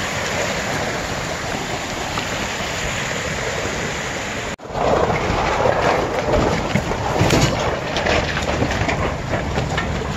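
Rushing creek water pouring over rocks, a steady loud hiss. After a break about four and a half seconds in it gives way to a louder, rougher rumble with scattered crackles.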